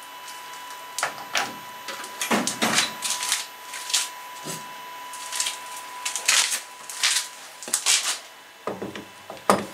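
Irregular clicks, knocks and rustles of tools and parts being handled at a milling machine, with no machine running and a sharp knock near the end.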